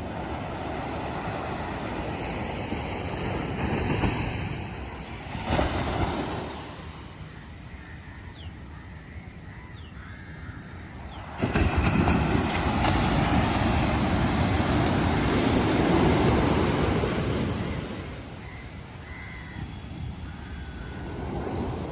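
Ocean surf: waves breaking and washing up the shore in swells. About eleven seconds in, a wave breaks suddenly and loudly, then drains back over several seconds. A few faint bird calls sound over the surf.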